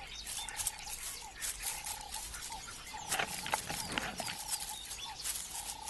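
Black-backed jackal pups whining as they jump at the adults begging for food: short, thin, steady-pitched whines repeating about once a second, mixed with scattered light clicks.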